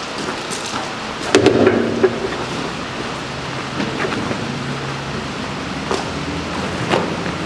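A cargo strap being handled and thrown over a tarped load on a flatbed trailer: a handful of sharp clicks and knocks from the strap and its hardware, the loudest a little over a second in, over a steady background hiss.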